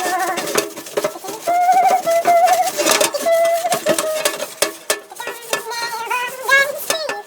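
Background music with a singing voice carrying a wavering melody, with short clicks throughout.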